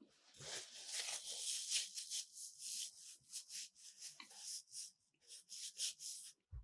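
Close-miked chewing of a mouthful of keto sushi: a quick, irregular run of short crackly mouth noises with a brief pause about five seconds in.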